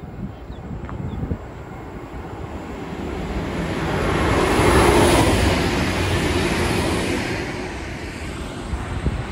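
V/Line VLocity diesel multiple unit passing through the station at speed. Its engine and wheel noise build to a peak about five seconds in, then fade as it goes by.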